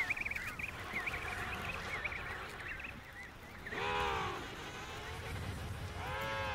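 Emperor penguins calling in a crowded colony. High wavering calls run through the first few seconds, then two loud, multi-toned trumpeting calls come about four seconds in and near the end, over a low rumble.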